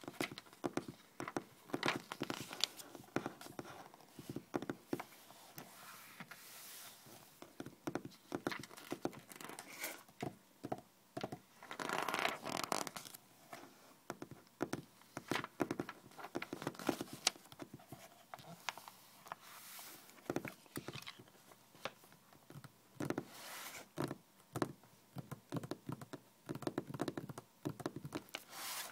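Fingernails tapping and scratching on glossy magazine pages: rapid irregular taps mixed with longer scratchy rustles of the paper, the longest about twelve seconds in.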